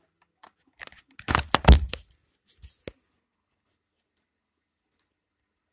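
Handling noise as the phone and notebook are moved: a short burst of clinking and rattling with a low thump about a second in, then a few faint clicks.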